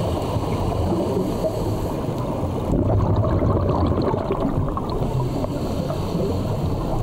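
Muffled underwater rumble and bubbling picked up by a camera underwater on a scuba dive, with a crackly gurgling texture; it gets a little louder about three seconds in.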